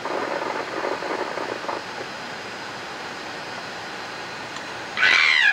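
Steady hiss of space shuttle cabin background noise, with a few uneven louder patches in the first two seconds. Near the end comes a loud short squeal that falls in pitch.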